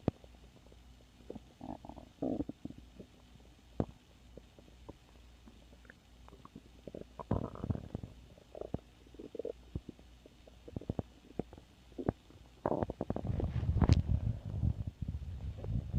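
Human stomach growling: scattered short gurgles and squeaks, then a long, louder low rumble starting about three-quarters of the way in.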